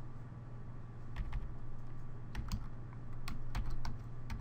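Computer keyboard being typed on slowly: a handful of separate keystrokes, unevenly spaced.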